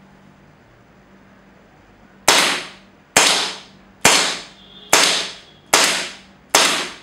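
Airsoft gun firing six shots, evenly paced a little under a second apart, starting about two seconds in; each sharp crack has a short fading tail.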